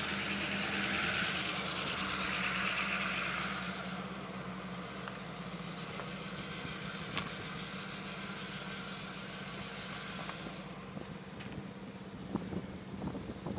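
Steady motor-vehicle hum with a hiss over it. The hiss eases off about four seconds in, and again near ten seconds.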